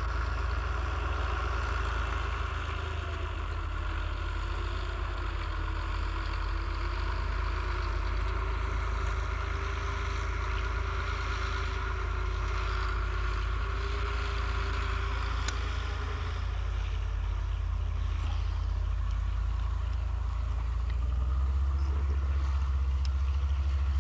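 Heavy farm machinery engine running steadily while working the field, a continuous low drone that grows louder near the end.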